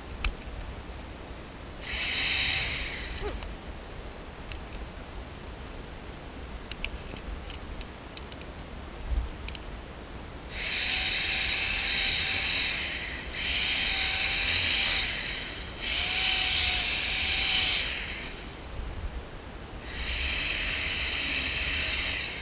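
Corded electric drill boring holes through PVC pipe, five separate runs of a high-pitched whine: a short one about two seconds in, then four of about two seconds each, one after another, in the second half.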